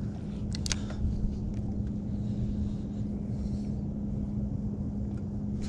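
A boat motor running with a steady hum, over a low rumble of wind on the microphone. A couple of light clicks come about half a second in.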